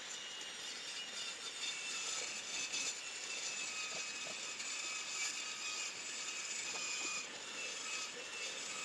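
Table saw blade cutting through a sheet of Perspex (acrylic), a steady whirring hiss with a faint high whine.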